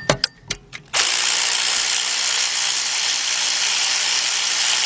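A few quick clicks, then a power ratchet running steadily for about four seconds, backing out a belt-adjuster bolt.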